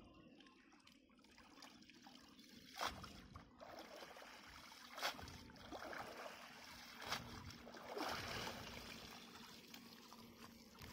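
Water sloshing and dripping as a cast net is hauled up by hand out of shallow water, with three sudden louder splashes about two seconds apart.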